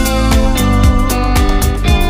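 Background music: sustained instrumental chords over a steady beat, with one note bending downward at the start.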